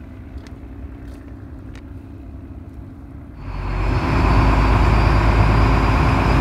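Boat engine running, heard from on board with water rushing past the hull. It is fairly quiet at first, then much louder from about three and a half seconds in, with a faint high whine that slowly rises.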